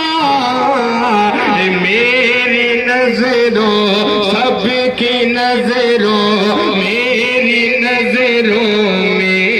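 A man singing a naat, an Urdu devotional poem in praise of the Prophet, into a microphone over a public-address system, in long wavering melodic lines with sustained notes.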